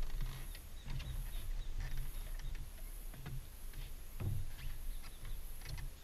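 Insects droning in a steady high band that swells and fades about once a second, over low rumbling with soft thumps and a few scattered light clicks.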